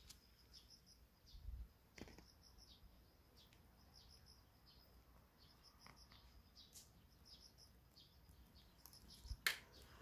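Faint outdoor quiet with small birds chirping in short, high, repeated notes. A faint click about two seconds in and a sharper knock near the end stand out over it.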